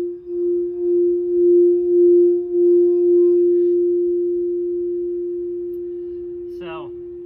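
Quartz crystal singing bowl tuned to F, rubbed around its rim with a mallet: one clear, sustained tone that swells and pulses for about three seconds, then rings on by itself and slowly fades.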